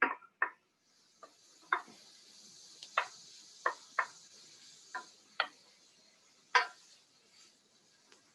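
Pancetta and onions sizzling in olive oil in a pan, a steady hiss that sets in about a second in. Over it, a utensil knocks against the pan about ten times at uneven intervals as the food is stirred, the loudest knock a little past the middle.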